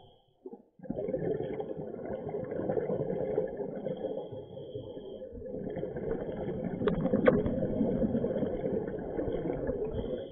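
A scuba diver breathing on a regulator underwater, heard as steady bubbling from exhaled air, muffled through the action camera's waterproof housing. Two sharp clicks sound about seven seconds in.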